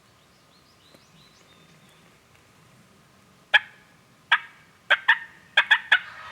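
A series of about seven loud, sharp turkey yelps, starting about three and a half seconds in and coming faster toward the end. Faint songbird chirps come before them.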